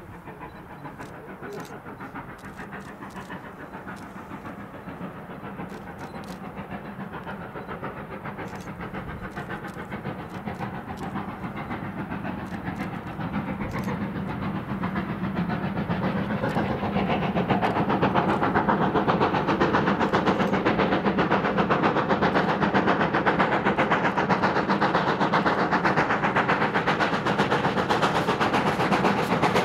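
GWR Saint-class 4-6-0 steam locomotive No. 2999 Lady of Legend working a passenger train, its exhaust beat growing steadily louder as it approaches, then staying loud as it draws level about two-thirds of the way in.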